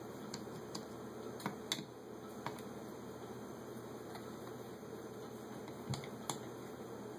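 Scattered small metallic clicks of a screwdriver and loosened screws against a Holley 600 carburetor's cast body as the screws are backed out and lifted free. The clicks are sharpest about a second and a half in and again near six seconds, over a steady background hum.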